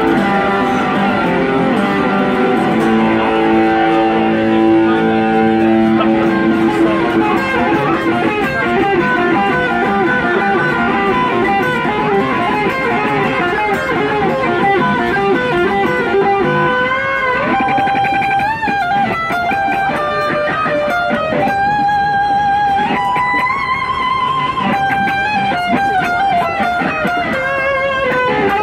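Electric guitar, a single-cutaway solid-body played through a small portable amplifier. It starts with chords and strumming, then about halfway through moves to a single-note lead line with bent, wavering held notes.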